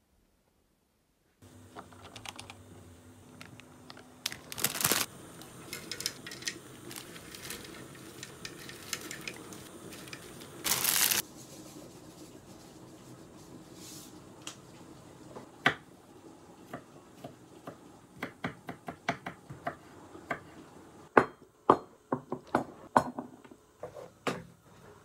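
Household objects being handled: scattered clicks and knocks over a low background hum, with two brief louder rustling bursts about five and eleven seconds in, and a quicker run of sharp clicks near the end.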